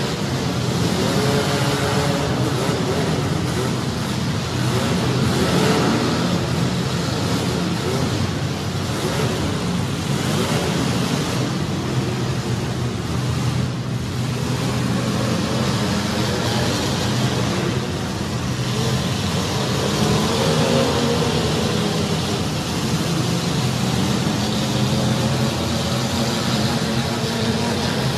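Several welded compact demolition derby cars running together, their engines revving up and down over a steady din.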